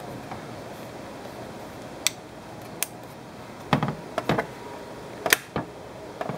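Scattered sharp plastic clicks and knocks from hands handling a 12-volt plug and the switch of an AirTool portable compressor, with several close together a little under four seconds in and a loud one about a second later.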